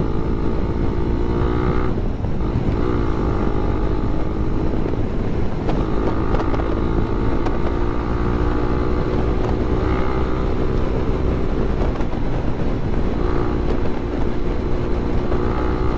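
Suzuki Raider 150 Fi single-cylinder four-stroke engine running at cruising speed, holding a steady pitch, with a brief shift in pitch about two seconds in as the throttle eases. Wind buffets the microphone underneath.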